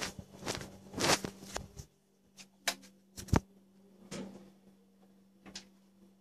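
Handling noise on the recording device: irregular knocks and rubbing, dense for about two seconds and then thinning to a few separate clicks, over a steady low hum.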